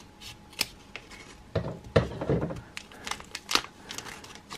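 Scissors snipping the top off a foil trading card pack, then the foil wrapper crinkling as it is handled open, with many short sharp clicks scattered throughout.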